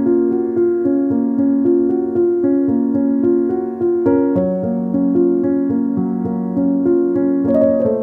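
Background music played on a keyboard instrument: a steady, unbroken run of notes.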